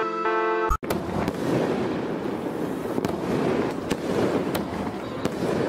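Background music with steady synth tones stops abruptly about a second in, and fireworks take over: a dense, continuous crackle with occasional sharp pops.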